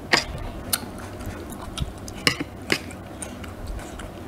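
Metal spoon clinking and scraping against a stainless steel tray while scooping up saucy oyster salad, with four sharp clinks in the first three seconds.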